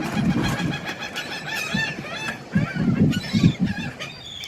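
Many birds calling at once, a steady stream of short chirps and clucks as they gather to be fed.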